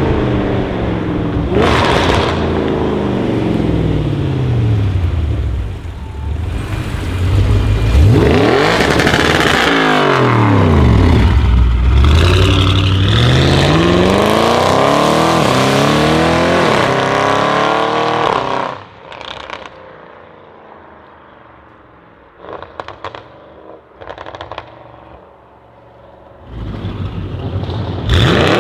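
Audi RS6 C7's twin-turbo V8 with a decatted Milltek exhaust, revving and accelerating hard, its note sweeping up and down through gear changes. About two-thirds of the way in it drops away to a low level with a few short pops, then it is loud again near the end.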